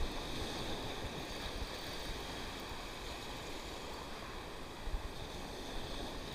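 Sea surf breaking and washing over shore rocks, a steady rushing wash.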